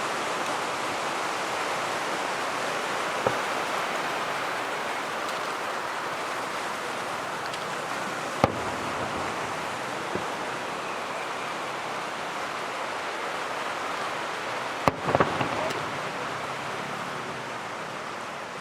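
Fireworks bursting a handful of times: sharp single bangs about 3, 8 and 10 seconds in and a quick cluster near 15 seconds, over a steady hiss of surf on the beach.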